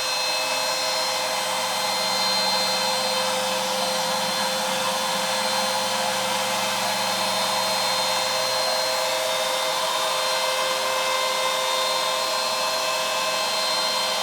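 CNC router spindle running steadily with a whine while a 1/4-inch ball-nose bit mills the wooden frame border in a finishing pass. A lower hum under it fades out about nine seconds in.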